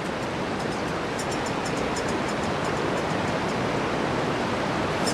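Steady rush of a river in flood, with faint high-pitched begging calls of Okinawa woodpecker chicks repeating several times a second over it.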